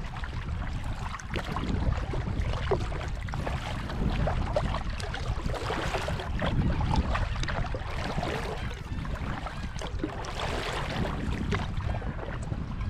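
Kayak paddle strokes splashing and dripping in calm water, with wind rumbling on the microphone.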